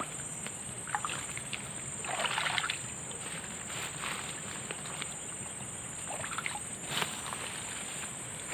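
Steady high-pitched insect drone, with scattered short rustles and light water sloshing, the longest about two seconds in.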